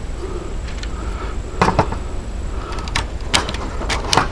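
9mm cartridges being pressed one at a time into a 20-round Hi-Point 995 carbine magazine: a series of sharp, irregularly spaced clicks as each round seats.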